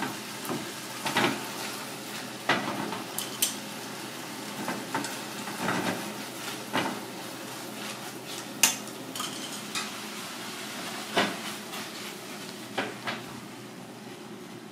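Baby corn and greens sizzling in a small black frying pan over a gas burner, with irregular metal clanks and scrapes as the pan is tossed on the grate and stirred with a utensil; one sharp clank stands out about two-thirds of the way in.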